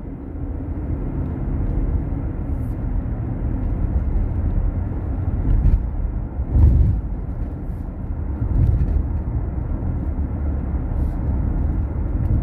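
Steady low rumble of a moving SUV's road and engine noise heard from inside the cabin, swelling briefly about halfway through.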